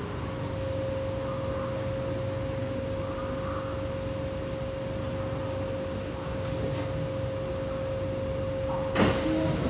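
Inside a stationary C751B metro train car: a steady single high tone holds over the car's low rumble, then a sharp clunk about nine seconds in, just before the doors open.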